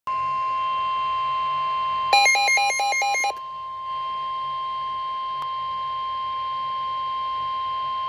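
NOAA Weather Radio's 1050 Hz warning alarm tone sounding steadily from a Midland weather alert radio's speaker, the signal that a warning message is coming. About two seconds in, a rapid run of alternating beeps plays over the tone for about a second, after which the tone carries on slightly quieter.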